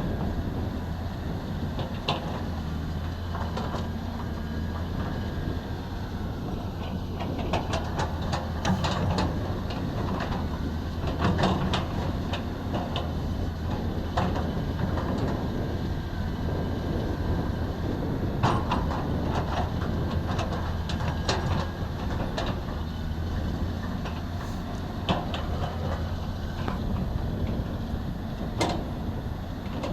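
Excavator engine running steadily, with frequent sharp clanks and knocks of the machine at work, thickest from about 8 to 12 seconds in and again around 18 seconds.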